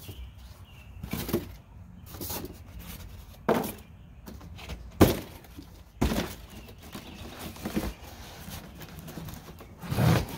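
Cardboard boxes and styrofoam packing being handled on concrete: a series of knocks and rustles, the sharpest about five seconds in, and a heavier thud near the end as a long cardboard box comes down.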